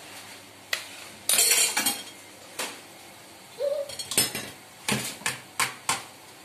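Stainless steel cooking pots and utensils clinking and clattering. A harsh scrape comes about a second and a half in, then a string of sharp clinks and knocks in the second half.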